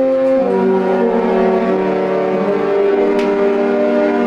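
The cruise ship's musical horn sounding a tune on departure, long held brassy notes stepping from one pitch to the next.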